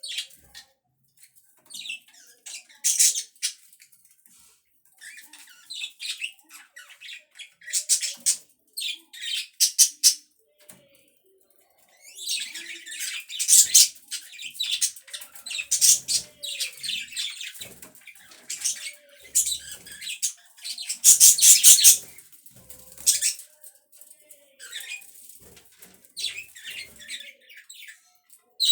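Budgerigars chirping and chattering in quick, irregular high-pitched bursts, busiest in the middle, with a brief lull about eleven seconds in.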